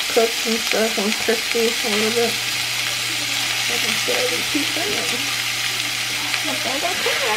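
Chunks of raw beef sizzling in a hot cast-iron skillet as they are seared on each side: a steady high sizzle throughout.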